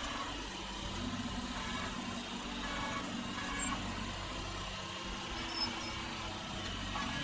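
Yanmar B22 mini excavator's diesel engine running steadily, heard sped up to double speed.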